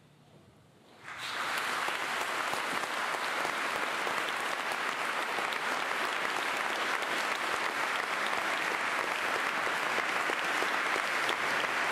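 The last trace of the band's final chord fades, and about a second in the audience breaks into applause. The clapping then carries on steadily.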